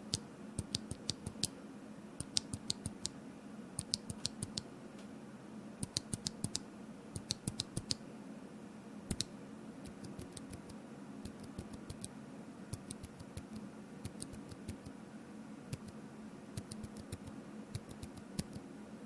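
Typing on a Drop Shift mechanical keyboard fitted with lubed Boba U4 silent switches: muted keystrokes in irregular bursts with short pauses.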